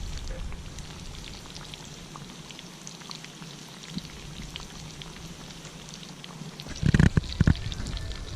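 Crumbed fish deep-frying in hot oil: a steady fizzing sizzle dotted with small pops and crackles. About seven seconds in, a run of loud low thumps starts.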